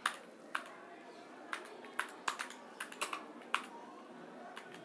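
Typing on an external keyboard connected to a phone by OTG: irregular key clicks, about two a second, some in quick pairs.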